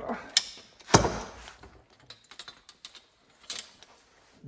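Metal hand tools clicking and clanking on a workbench as pliers are worked and put down, with one loud metallic clank about a second in and a few sharp clicks later on.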